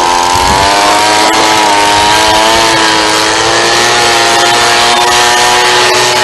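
A blower running steadily at high speed, blowing the sawmill clean. Its pitch wavers slightly.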